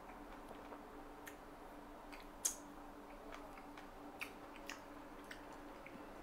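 Quiet room with a faint steady hum and a few scattered small clicks and taps, the sharpest about two and a half seconds in and another just after four seconds.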